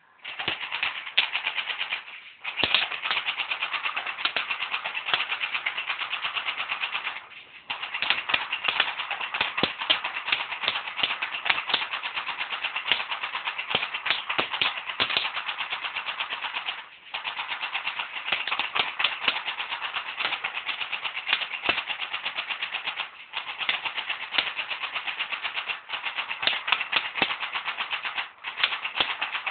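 D90F P90-style BB gun firing on full auto: long bursts of rapid clicking shots, broken by brief pauses every few seconds.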